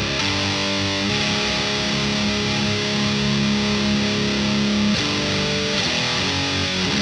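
High-gain distorted electric guitar through a Victory VX100 Super Kraken amp, boosted by a Lichtlaerm Audio Amber Spyglass EQ pedal, playing held chords that ring out, changing about a second in and again near five seconds, then shorter notes.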